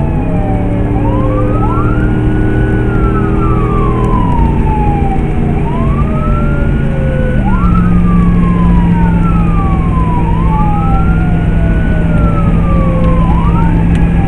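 Emergency vehicle siren on a slow wail, heard from inside the responding vehicle: each cycle rises quickly, holds and falls slowly, repeating every few seconds. Beneath it are the vehicle's engine drone, which drops in pitch twice, and road noise at speed.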